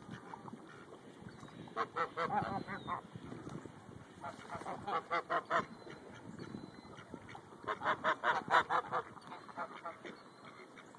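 Greylag geese honking in three bursts of quick repeated calls, about two, five and eight seconds in.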